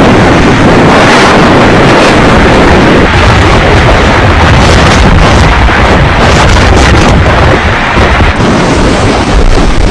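Strong storm wind from Typhoon Noru hitting the microphone: loud, constant noise with heavy low buffeting.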